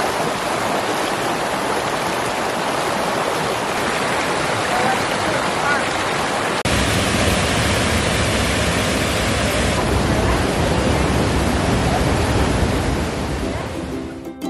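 River water rushing steadily over rocks. About six and a half seconds in, the sound shifts suddenly to a fuller, deeper rush with more low rumble.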